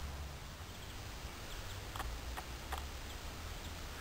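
Scale model of a twin-cylinder ELLWE 2FB two-stroke diesel engine running slowly, a light regular ticking of about three beats a second over a low rumble; the ticks become clear about halfway in.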